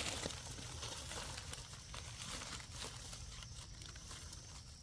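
Rustling and crackling of dry leaf litter and undergrowth as hands dig out and pick a mushroom from the forest floor, with light scattered clicks.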